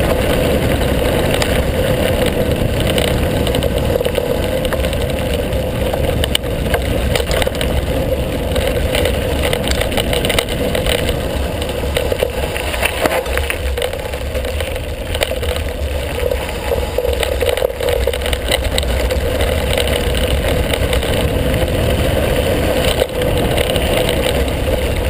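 Mountain bike rolling fast over a gravel track: a steady rush of wind on the microphone and tyre rumble, with frequent small rattles and knocks from the bike as it runs over stones.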